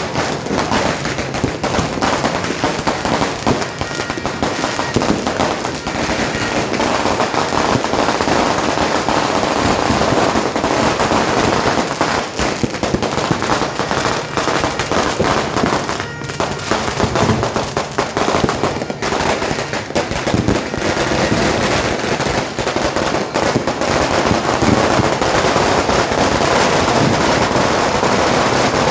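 Fireworks and firecrackers going off nonstop, a dense crackle of many overlapping bangs with no pause.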